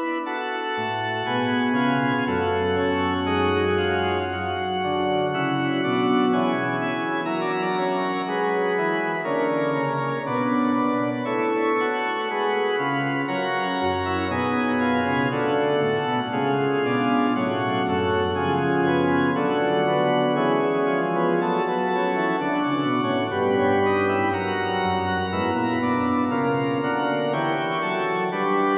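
Sampled church organ voice from a SoundFont (Harmor Church Organ) playing held chords over a low bass line that moves to a new note every few seconds.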